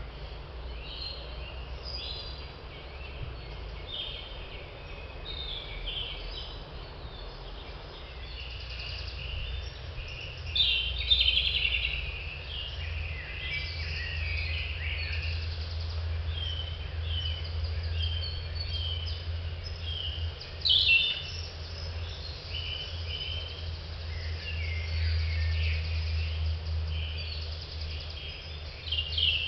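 Several small songbirds singing and calling in woodland: overlapping chirps and trills, with a couple of louder bursts of song. A steady low rumble runs underneath.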